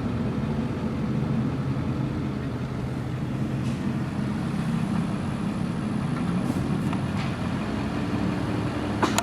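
Car engine and road noise, a steady hum heard from inside the cabin while driving slowly, with a short sharp click about nine seconds in.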